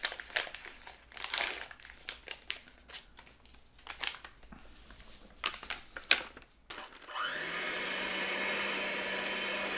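A plastic powder packet crinkling as it is torn open and handled, with scattered clicks. About seven seconds in, an electric hand mixer starts and runs steadily with an even hum, beating whipped cream in a glass bowl.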